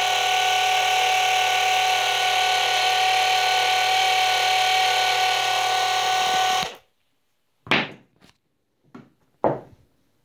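Small electric gear pump with brass gears, running on about 25 volts, whines steadily while pumping motor oil. It cuts off suddenly about two-thirds of the way through. A few sharp knocks follow.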